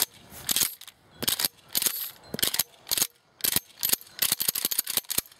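Remington 870 pump shotgun's action worked back and forth repeatedly, sharp metal clacks of the forend and bolt in a run of quick clusters, as the shells are cycled out to unload it.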